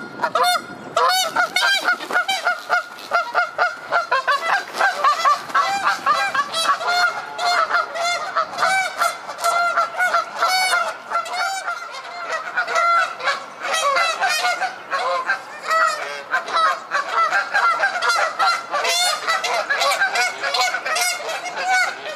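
Canada geese honking in rapid, overlapping calls, several a second with no let-up: the calls of geese squabbling and fighting with one another.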